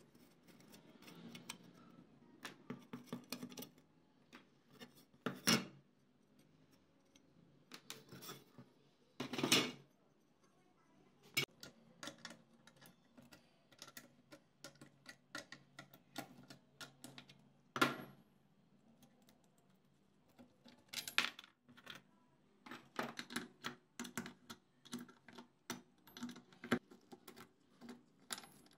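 Small metal clinks and clicks from hand tools, screws and loose parts being handled while an old rusty exhaust fan is taken apart, with a wrench working the bolts of its mounting bracket. A few louder metal knocks stand out among the clicks.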